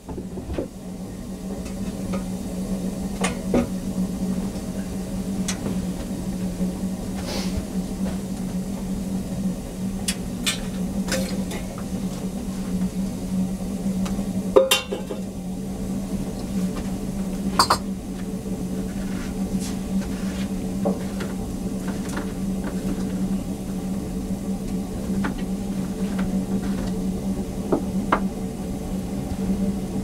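Light clicks, knocks and clatter of items being handled beside a burning wood stove, with a sharper knock about halfway through, over a steady low hum.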